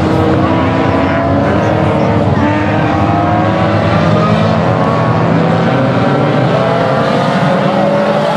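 Many dirt-track stock car engines running together as a pack, several tones climbing in pitch through the second half as the cars accelerate.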